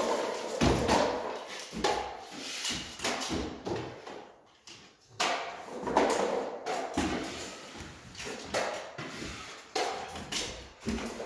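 Irregular knocks and scrapes of drywall taping: a drywall banjo taper feeding mud-coated paper tape onto a ceiling seam, and aluminium drywall stilts clacking on a concrete floor, in a bare, echoing room.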